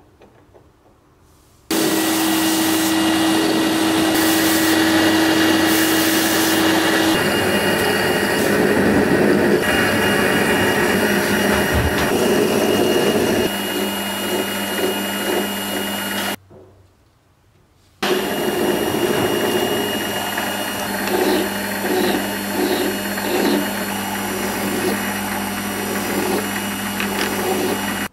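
Metal lathe running steadily with a small steel rod spinning in its chuck, a hand file scraping against the turning metal. It starts suddenly a moment in, cuts out for about a second and a half past the middle, then runs again.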